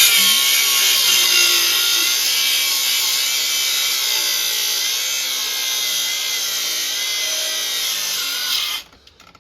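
Cordless Milwaukee M18 angle grinder cutting through a steel frame cross member, its motor pitch wavering under load. It stops abruptly near the end as its battery dies.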